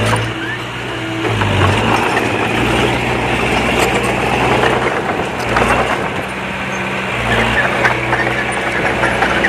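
Diesel engine of a Komatsu D20P bulldozer running under load, its note shifting a few times, with dense crunching and crackling of soil and debris being pushed.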